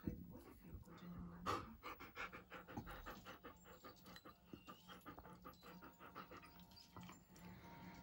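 Young German shepherd panting rapidly and faintly during play, with one louder breath or bump about one and a half seconds in.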